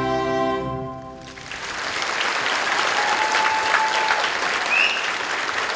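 An orchestral piece holds its final chord, which cuts off about a second and a half in, and the audience breaks into applause.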